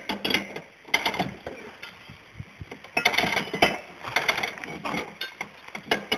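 Windlass ratchet of a small wooden onager clicking in irregular bursts of sharp metal-on-wood clicks as the throwing arm is winched down to cock it.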